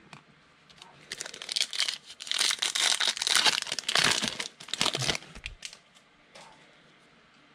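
A foil trading-card pack torn open and crinkled by hand: dense crackling from about a second in that stops a little after five seconds.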